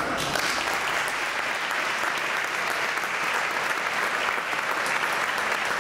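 Audience applauding: the clapping breaks out at once and holds steady.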